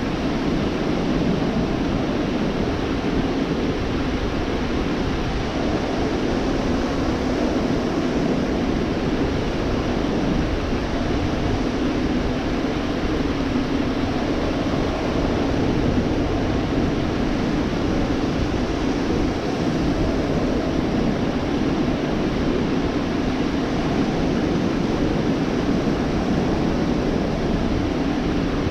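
Ocean surf breaking on a beach: a steady, unbroken rushing with no separate wave crashes standing out.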